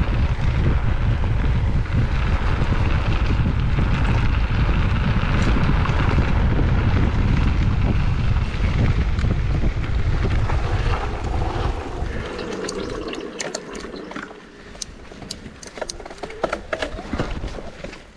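Wind buffeting the microphone over the rumble of a mountain bike's tyres and frame on a fast trail descent. About 12 seconds in the rumble drops away as the bike slows, leaving scattered sharp clicks and rattles.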